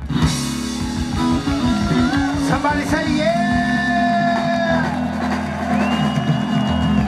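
Live zydeco band with piano accordion, electric guitar and drum kit finishing a song. A run of rapid drum hits gives way about three seconds in to a long held closing chord, with a note gliding up to a high held tone near the end.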